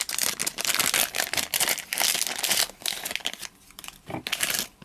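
Pog booster pack wrapper crinkling as hands work at the pack and take out the caps, a dense crackle that thins into separate bursts near the end.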